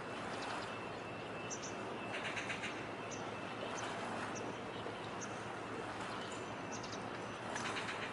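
Small birds chirping a few times over a steady harbour background noise, with two short rapid chattering bursts, one a little after two seconds in and one near the end.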